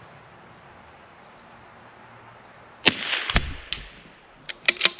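A subsonic .22LR shot from a CZ 457 bolt-action rifle: two sharp cracks about half a second apart, the second the loudest, then several small metallic clicks of the bolt being worked. A steady high insect chorus runs underneath.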